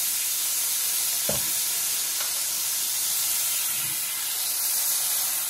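Red wine vinegar sizzling and hissing in a very hot pan of rendered duck fat as it deglazes the pan, with a couple of soft knocks.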